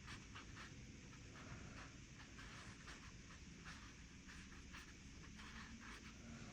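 Faint watercolour brush strokes on sketchbook paper: a string of brief, soft, irregular swishes over a low steady hiss.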